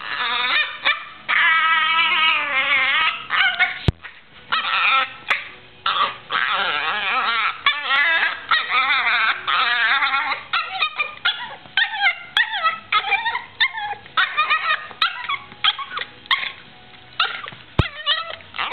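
Yorkshire terrier vocalizing in play: long, high, wavering whining cries in the first half, then shorter yips and whines repeated about once a second, with a sharp click now and then.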